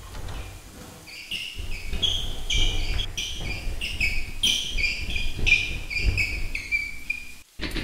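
Film soundtrack: a shrill run of high tones stepping up and down in pitch over low thuds, cut off abruptly near the end.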